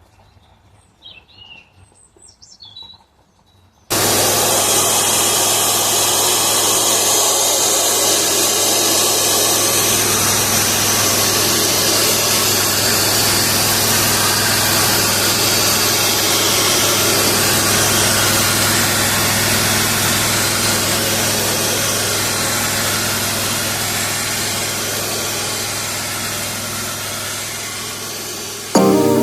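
A few faint bird chirps. About four seconds in, a powered cleaning machine starts abruptly and runs loud and steady: a broad rushing noise over a low hum, easing off slightly near the end.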